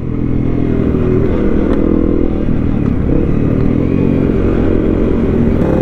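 Honda CRF250 Rally's single-cylinder engine running at low riding speed under wind and road noise, easing off briefly about halfway and then picking up again.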